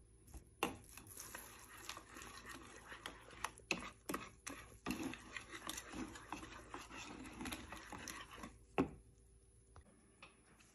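Wire whisk stirring a thick, wet paste of roasted corn flour, water and milk in a bowl: soft scraping and squishing with frequent small clicks of the wires against the bowl, ending in a sharper knock near the end.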